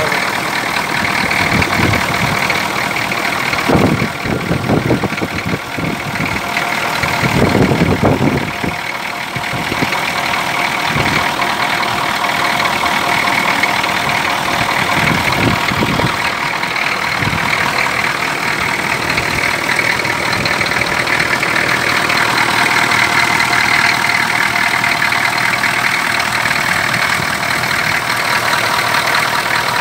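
Detroit Diesel 6.2-litre V8 diesel idling steadily with its even diesel clatter, heard close up in the open engine bay. A couple of louder low swells come about four and eight seconds in.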